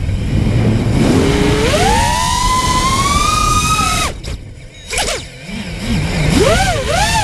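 Brushless motors and propellers of an FPV racing quadcopter (Armattan Titan 2306 2450kv motors, 5045 props) whining, the pitch climbing steadily as the throttle is pushed. About four seconds in the whine drops away as the quad tumbles in a crash, a brief sharp sound follows, and the motors spool back up with a rapidly wavering pitch as it is recovered.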